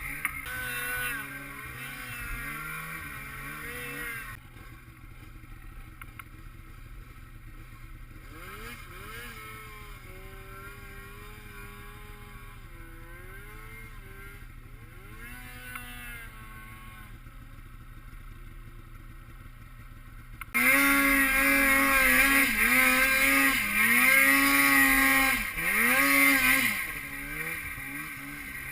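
Snowmobile engines revving, their pitch rising and falling, fairly quiet for most of it. About two-thirds of the way in the engine sound suddenly gets much louder for several seconds of hard revving, then drops back.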